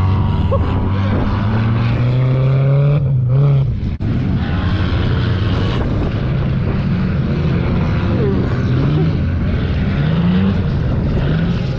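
Engines of several old cars racing on a dirt track, running hard with repeated rises in pitch as drivers accelerate, over a rough rumble of the pack.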